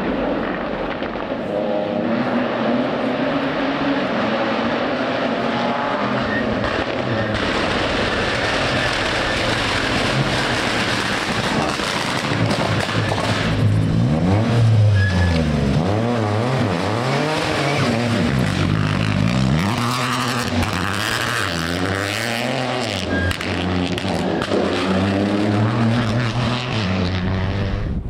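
Rally cars at full attack on a stage, engines revving hard and dropping back again and again as they brake, change gear and accelerate out of bends. The revving is loudest and quickest about halfway through, as a Peugeot 208 rally car works its way through a tight tarmac corner.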